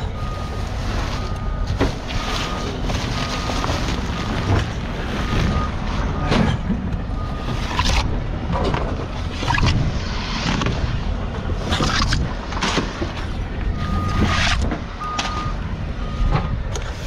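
Heavy machinery rumbling, with a reversing alarm beeping about once a second through the first half and again near the end. Intermittent thumps and clatters of construction debris being thrown out of a truck.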